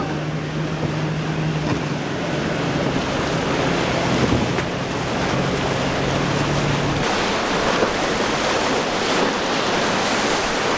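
Steady hum of a boat's outboard motor over wind and breaking waves. The hum stops suddenly about seven seconds in, leaving the rush of surf and wind.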